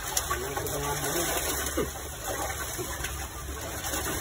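A steady low motor hum.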